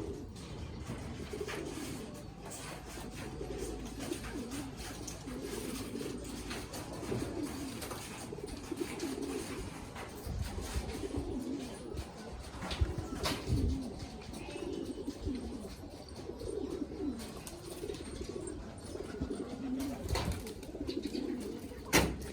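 Domestic pigeons cooing, several birds overlapping in a continuous low warbling. A few sharp knocks cut in, the loudest one near the end.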